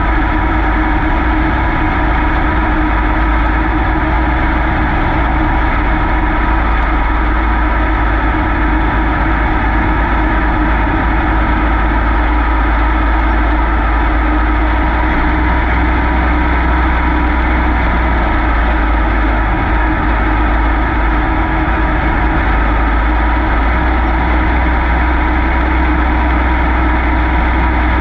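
Super Late Model dirt race car's V8 engine running loudly and steadily, its pitch barely changing, heard from an on-board camera.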